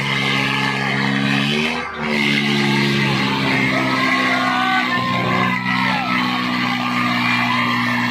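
Tractor engines held at full throttle and labouring under heavy load as two tractors pull against each other in a tug-of-war. The engine note dips briefly and shifts in pitch about two seconds in, and a crowd starts shouting over it from about halfway through.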